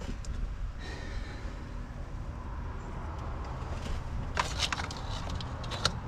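A few light clicks and taps of hands handling parts in a pickup's engine bay, a small cluster about four and a half seconds in and another near the end, over a steady low rumble.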